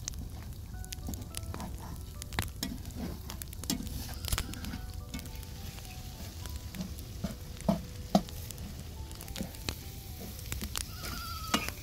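Scrambled egg and tomato mixture sizzling in a wok over a wood fire, with a perforated ladle knocking and scraping against the pan as it is stirred.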